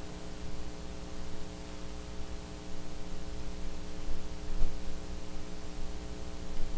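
Steady electrical mains hum with a faint hiss from the sound system, a fixed buzz of several even tones that does not change.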